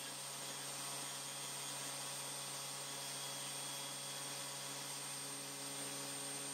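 Table saw motor running at a steady pitch: a hum with a thin high whine above it.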